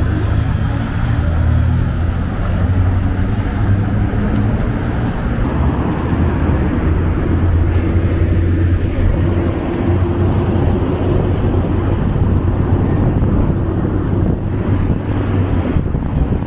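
Road traffic on a multi-lane city road: cars passing with a steady low rumble, and an engine hum in the first few seconds.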